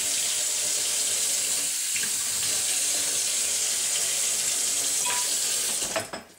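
Kitchen tap running steadily into a sink, then shut off about six seconds in with a light knock.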